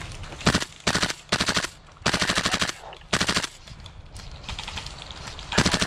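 Airsoft rifle, an HPA-converted Tokyo Marui MWS, firing six short full-auto bursts in quick succession. The longest burst comes about two seconds in and the last near the end, with faint distant rattling between them.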